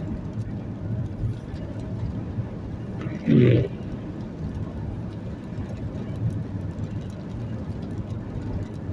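Vehicle engine running with a steady low drone. A brief loud sound about three seconds in stands well above it.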